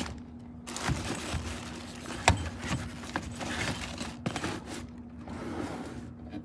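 Scraping and rustling as a soft tool bag holding cordless tools is handled and put back into a tool chest drawer, with scattered clicks and one sharp knock about two seconds in.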